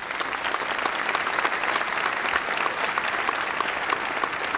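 Audience applauding with dense, steady clapping.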